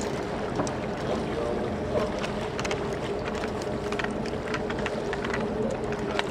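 Charter boat's engine running steadily, with wind and water noise and a few scattered light clicks.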